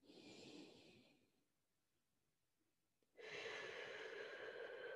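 A person breathing slowly and audibly during a guided deep-breathing exercise: a short, soft breath at the start, then a long drawn breath that begins about three seconds in.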